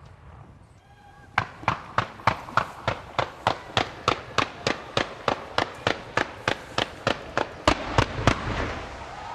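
Fireworks going off in a rapid, regular string of sharp bangs, about three a second, starting a little over a second in. Three louder bangs come near the end, then a rushing hiss.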